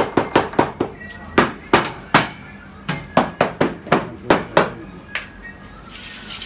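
A rapid series of sharp knocks, about four or five a second, in short runs with brief gaps, which stop about five seconds in.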